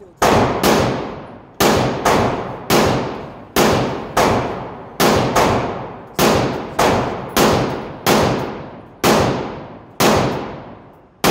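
Handgun fired shot after shot on an indoor range: about seventeen sharp reports at an uneven pace, roughly one every half second to second, each followed by an echo that dies away.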